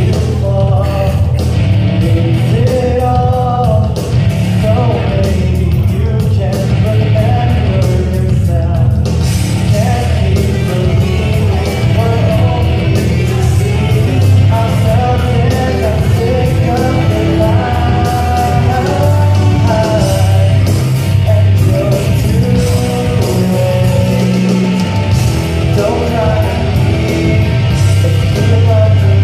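Loud rock karaoke backing track with heavy guitar playing through a hall PA, with a man singing along live into a handheld microphone.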